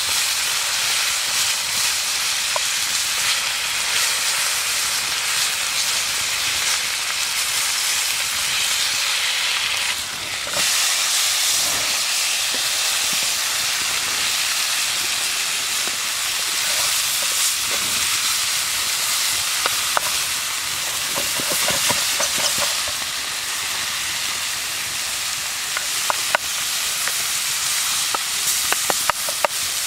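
Meat medallions frying in hot fat: a steady sizzle with scattered pops and crackles that come more often near the end.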